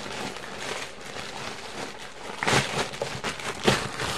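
Plastic poly mailer bag crinkling and rustling as hands rummage in it and pull the contents out, with louder crackles about halfway through and again near the end.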